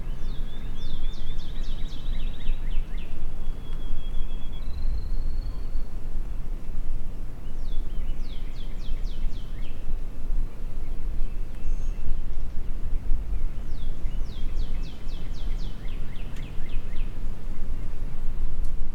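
Steady low wind rumble on the microphone, with a songbird singing three times, each song a quick run of high, falling notes.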